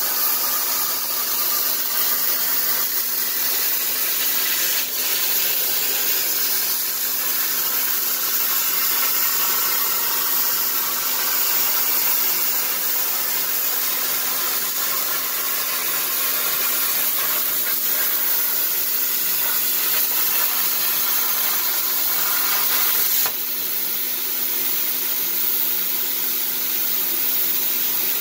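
Everlast PowerPlasma 60 plasma cutter's arc hissing steadily as the CNC machine torch cuts sheet metal, over the steady hum of the table's downdraft blower. The arc cuts out suddenly a few seconds before the end, leaving a slightly quieter steady hiss.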